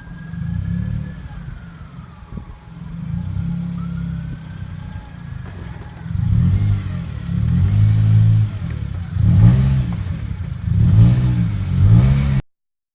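A 2004 Honda Civic EX's four-cylinder engine being revved in repeated surges as the car is driven up onto ramps. Near the end it cuts off suddenly.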